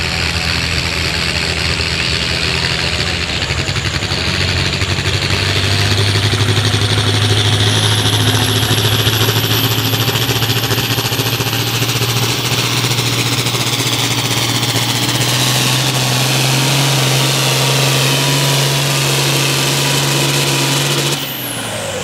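International Harvester pulling tractor's diesel engine working hard under load as it drags a weight-transfer sled. The engine picks up about three seconds in, and a high whistle climbs in pitch as the pull goes on. Near the end the engine is throttled back at the end of the pull, and the sound drops sharply with a quickly falling whistle.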